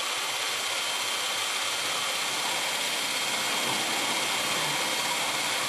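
Hitachi 18-volt cordless drill running at high speed with a quarter-inch drill saw bit cutting sideways through quarter-inch lauan plywood: a steady motor whine over the rasp of the bit in the wood. It cuts off suddenly near the end.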